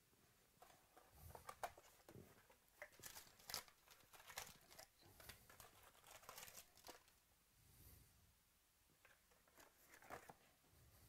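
Faint, irregular crinkling and rustling of wrapping and cardboard as a 2018 Panini Chronicles baseball card box is opened by hand and its foil packs are lifted out.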